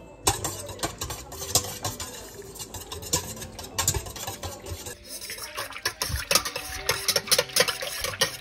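Wire whisk beating eggs, oil and water in a stainless steel bowl: rapid clicking and scraping of the wires against the metal, starting about a quarter second in.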